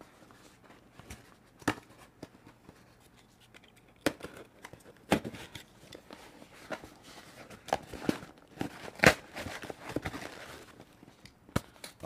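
Small cardboard shipping box being opened and handled by hand: cardboard and packaging tearing and rustling, with scattered sharp clicks and knocks, the sharpest about nine seconds in.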